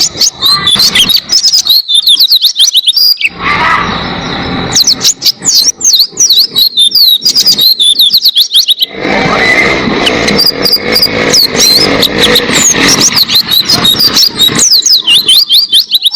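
White-eye (pleci) singing long runs of rapid, high twittering chirps in three bursts, with stretches of lower, noisier sound between them.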